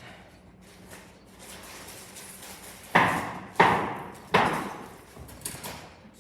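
Three loud knocks in quick succession about three seconds in, each ringing out briefly, followed by a fainter knock later.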